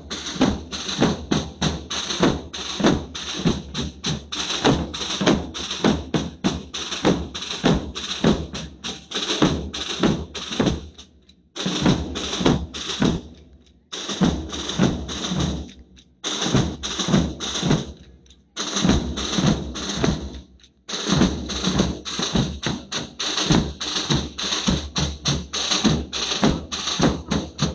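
A large group of big double-headed bass drums beaten with sticks in a fast, steady rhythm. The drumming stops briefly several times in the middle and then starts again.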